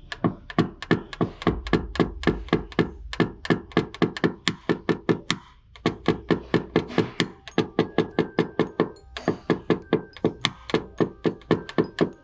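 Paintless dent repair tapping down on a car body panel: a tap-down tool struck with a small hammer, giving rapid light knocks at about four a second, with a short pause about six seconds in, to level high spots around the dent.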